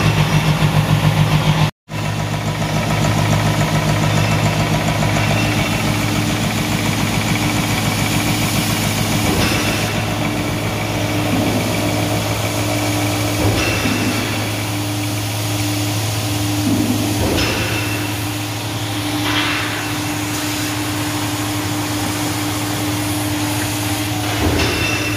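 Kotec plate beveling machine running: a steady mechanical drone with a low hum and a steady higher tone. It pulses quickly at first, drops out for a split second about two seconds in, then runs on evenly.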